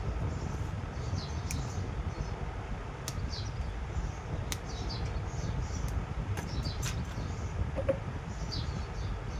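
Small birds chirping repeatedly over a steady low rumble, with a few sharp clicks.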